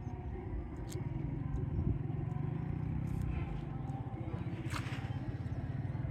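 An engine running with a steady low rumble, with a few faint clicks over it.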